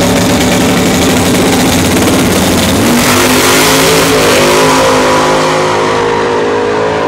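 Drag cars launching and accelerating hard down the strip, the nearer one a Fox-body Ford Mustang. The engines are loud and held high on the line. The note shifts about three seconds in as the cars pull away, and it keeps changing as they run downtrack.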